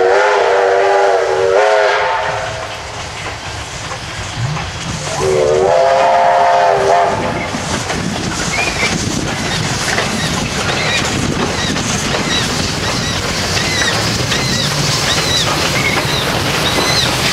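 Steam locomotive whistle sounding two blasts, each about two seconds long: one at the start and one about five seconds in. Then the double-headed steam train, Victorian Railways K190 and J515, works across a timber trestle with steady exhaust and rolling wheels.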